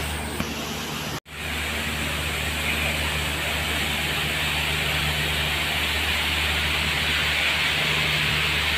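Fire-fighting water curtain spraying with a steady, even hiss over a continuous low machinery hum. The sound cuts out for an instant about a second in.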